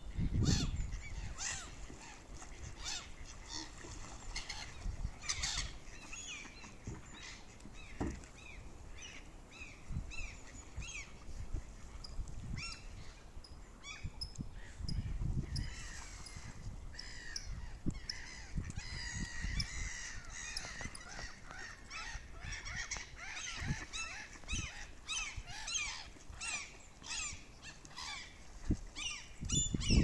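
Gulls and mallard ducks calling as they crowd in to be fed: many short, repeated cries that overlap, busiest in the second half, with a few low rumbles now and then.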